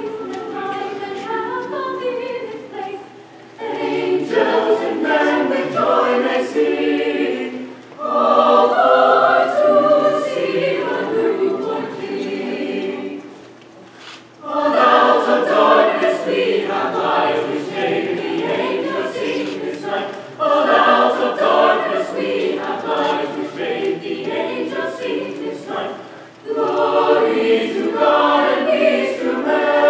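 Mixed choir of young men's and women's voices singing in parts, in long phrases broken by short pauses for breath.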